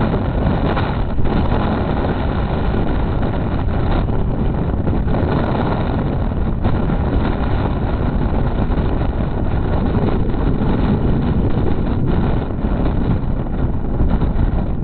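Gale-force wind buffeting the microphone: a loud, steady low rumble of wind noise with gusts.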